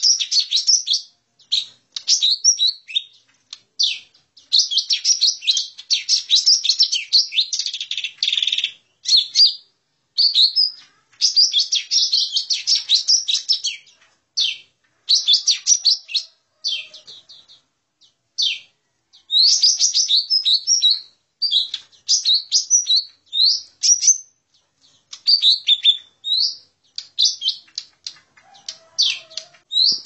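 Cucak ijo mini (a small green leafbird) singing its fighting call as a bird-lure recording. It gives rapid, chattering strings of high whistled notes in bursts from under a second to several seconds long, with short gaps between them.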